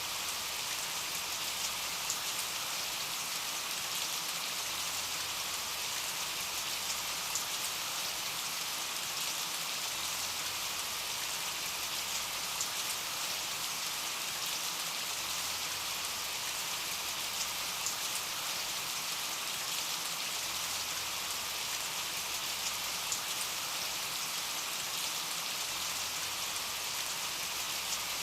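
Steady rain falling, an even hiss with a few louder individual drops standing out now and then.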